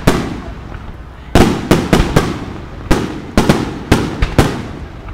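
Aerial fireworks bursting in the sky: about ten sharp bangs in uneven clusters, each trailing off in a rumbling echo.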